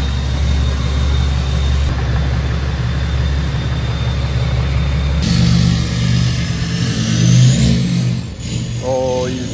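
Cummins inline-six turbo diesel, emissions-deleted and tuned, running loud with a steady high turbo whistle over its low drone. About five seconds in it revs as the truck pulls away, the turbo spooling up in a rising whine, the jet-like sound the delete brings out.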